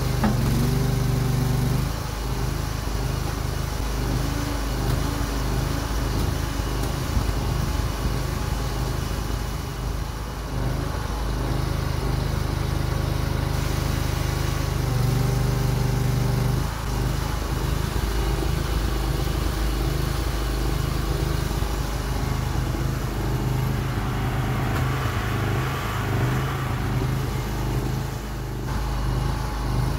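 Engine of a homemade mini excavator running and driving its hydraulics, its steady note shifting several times as the boom, arm and bucket are worked.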